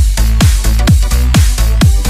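Electronic dance music with a fast, steady kick drum, each beat dropping in pitch, over a sustained bass.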